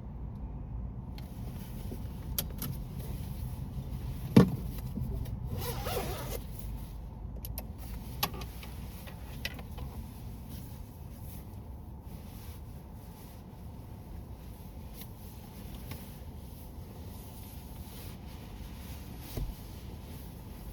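A car driving, with a steady low rumble of road and engine noise. A sharp loud click comes about four seconds in, followed a second later by a short whirring noise, with a few lighter clicks after.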